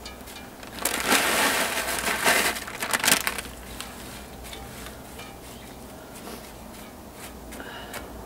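Crushed Doritos tortilla chips crackling and crunching as they are scattered and pressed by hand over a casserole in a cast iron Dutch oven. The loudest crackling comes from about one to three seconds in, then fainter crackles follow.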